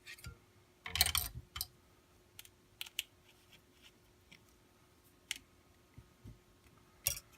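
Scattered small clicks and taps of hard holster parts and a small screw being handled and fitted, with a short busier cluster about a second in and another sharp click near the end.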